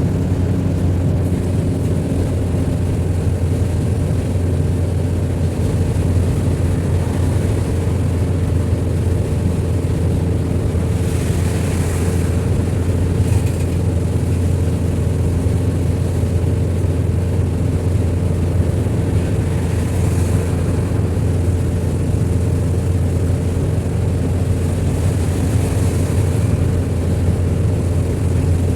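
Steady engine and road noise of a vehicle being driven, with a few brief rushing swells.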